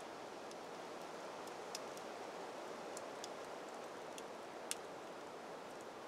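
Campfire crackling, with a few sharp pops, the loudest near the end. Under it runs a steady hiss that the owner puts down to his Canon camera's own hum.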